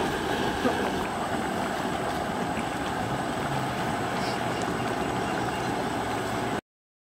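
Mutton curry boiling hard in a kadai: a steady bubbling, rumbling hiss that cuts off abruptly near the end.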